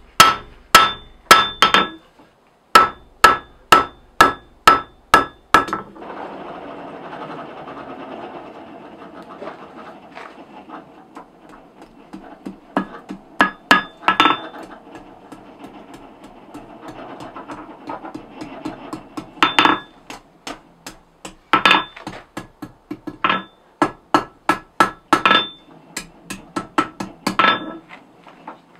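Hand hammer forging a glowing 6 mm mild-steel bar on an anvil: quick blows at about two or three a second, each ringing off the anvil. About six seconds in the heavy blows give way to a steady rushing noise with scattered lighter taps, and the ringing blows return near twenty seconds in.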